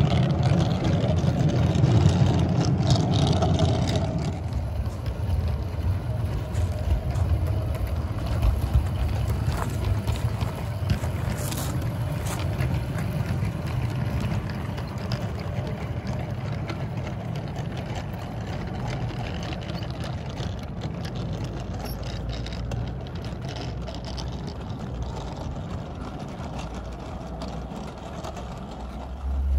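Battery-powered 16mm-scale model train running on garden-railway track, a steady rumble of its wheels on the rails. It is loudest for the first four seconds as the coaches pass close, then quieter as the train runs away.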